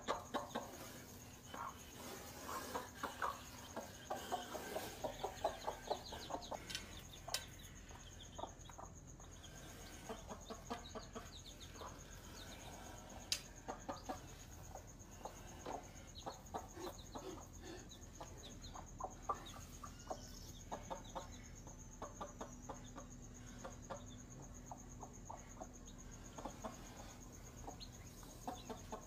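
Mother hen clucking in short repeated calls, thickest over the first several seconds and then more scattered, with her chicks cheeping.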